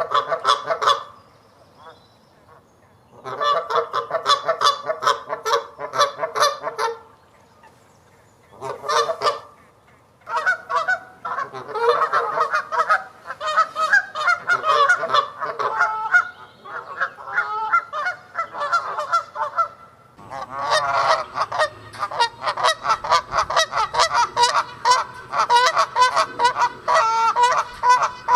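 Canada geese honking in bouts of rapid, repeated honks. There are short pauses about a second in and again around seven seconds in, after which the honking runs almost without a break, several calls overlapping.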